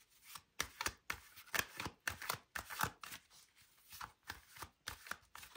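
Tarot deck being shuffled by hand: a quick, irregular run of soft card flicks and taps, about four a second.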